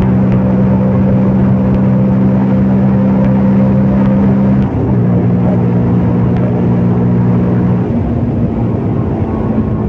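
CFMOTO Papio 125's single-cylinder four-stroke engine running steadily under way, heard from the rider's position. The engine note dips briefly and settles a little lower about five seconds in, then drops again in pitch and loudness near the eighth second as revs fall.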